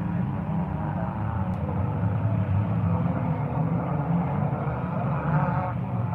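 Stock car engines running in the pits, a steady low drone, with people talking in the background.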